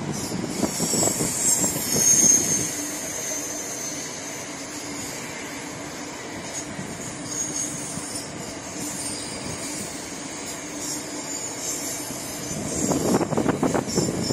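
Freight train wagons rolling past, steel wheels on rail giving a steady rolling noise with thin, high-pitched squeals that come and go. It is loudest in the first few seconds, eases off through the middle, and grows louder again near the end.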